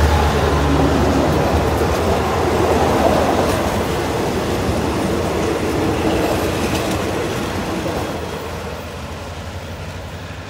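Passenger train coaches rolling past on the track, a steady rumble of wheels on rails that fades over the last few seconds as the rear of the train moves away.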